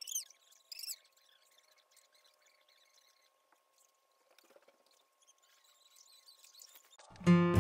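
Two short high-pitched squeaks about half a second apart, then faint scattered sounds over a steady faint high hum. Strummed acoustic guitar music starts loudly near the end.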